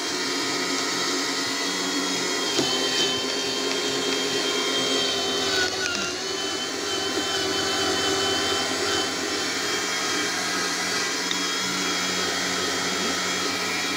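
Zelmer electric meat grinder running steadily as it grinds horseradish root, its motor pitch dipping briefly about six seconds in.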